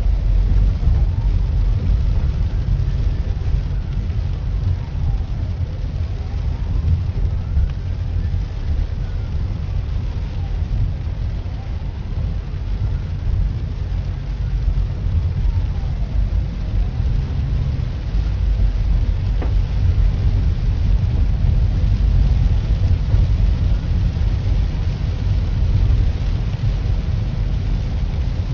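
Ambulance siren in a slow wail, its pitch rising and falling about every five seconds, faint behind a loud steady low rumble of the car and rain inside the cabin; the wail fades in the second half.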